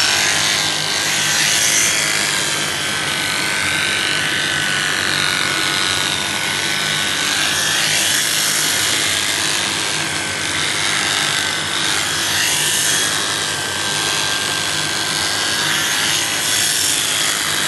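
Electric sheep-shearing clippers running steadily, cutting through a sheep's thick, matted wool, with a constant high-pitched hum from the motor.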